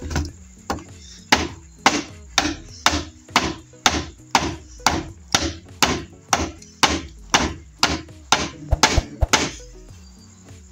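Small axe chopping into a green bamboo tube: about twenty sharp strikes at roughly two a second, cutting a notch beside a node, that stop shortly before the end.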